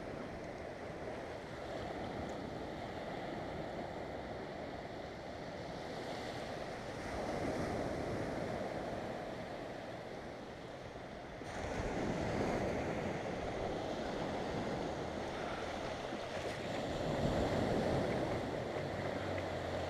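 Surf washing up on the beach, waves breaking and rushing in and out in slow swells, with wind on the microphone.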